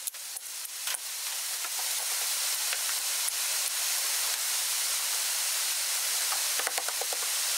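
Rain falling outside, a steady hiss that grows a little louder after the first second. A few light clicks and taps come in the first second and again near the end.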